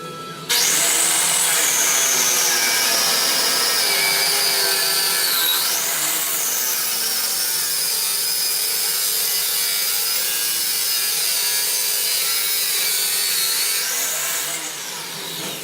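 A power tool working steel: a loud, steady grinding with a high motor whine that starts suddenly, drops in pitch as the tool bites and climbs again as the load comes off. Near the end the whine rises and the sound fades out.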